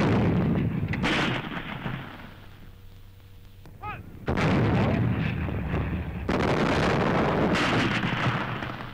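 Coastal artillery guns firing: a heavy report at the start and another about a second later, dying away, then after a lull a fresh run of reports from about four seconds in, with two more following before they fade near the end.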